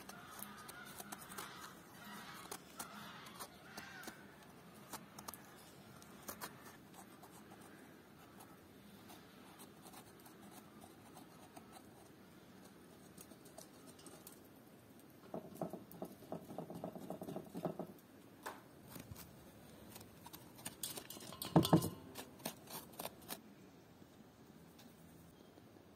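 Knife scraping and cutting the flesh out of eggplant halves over a wooden board: soft, irregular clicks and scrapes, with a denser run of scraping a little past halfway and one sharp knock near the end.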